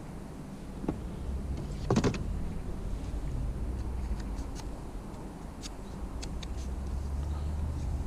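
A marker pole being worked over the side of an inflatable boat: a small knock, then a louder knock about two seconds in, and a few light ticks later on, over a steady low hum.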